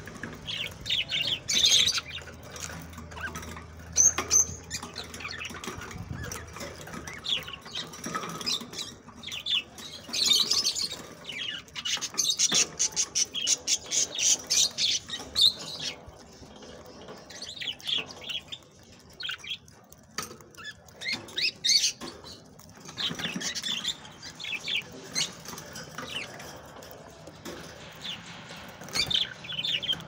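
A small flock of budgerigars chattering in short, high chirps and warbles, with a fast run of chirps in the middle. The birds peck and crack seed as they call.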